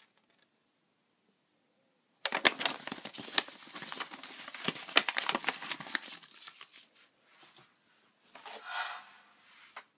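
Packaging being torn open and crinkled, dense crackling with sharp clicks for several seconds, then a shorter rustle near the end.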